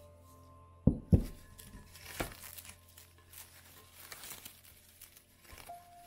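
Plastic cling film crinkling and crackling as it is stretched and pressed down over a glass mixing bowl, after two sharp knocks about a second in. Soft background music underneath.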